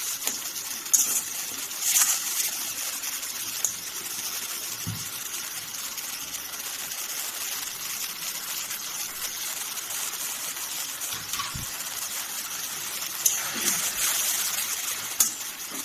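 A spice paste sizzling in hot oil in a metal karai, a steady hiss, with a few sharp scrapes and taps from the metal spatula stirring it.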